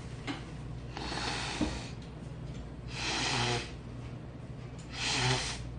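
A man blowing his nose into a paper tissue: three short rushing blows about two seconds apart, the last two the loudest.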